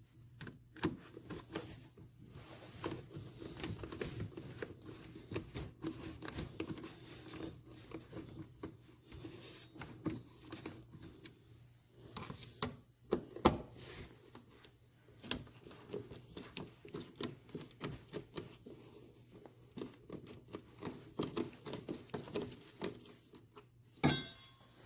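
Screwdriver with a Torx (star) bit working the screws out of a Chevy Avalanche's plastic air filter box: a long run of small clicks, scrapes and rubbing, with two sharper knocks, one about halfway through and one near the end.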